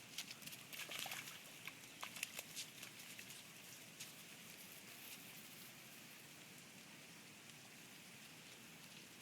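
Near silence: a faint steady outdoor hiss, with scattered small ticks and patter through the first few seconds.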